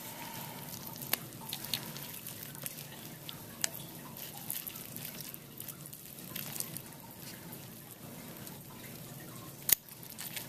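Scattered faint clicks and light handling noises from steel dissecting forceps and gloved hands at work, with one sharper click near the end.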